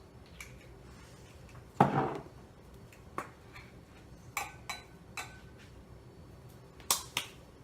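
Kitchen clatter: irregular knocks and clicks of jars, containers and utensils being handled, with one louder knock about two seconds in and a few lighter clicks that ring briefly.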